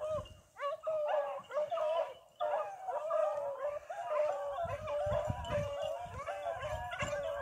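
Hunting dogs baying and howling on a trail, several voices overlapping in a continuous chorus of bending, wavering calls.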